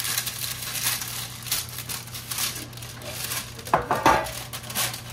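Parchment paper crinkling and rustling as it is folded and creased to line a metal loaf pan, with a louder clatter about four seconds in.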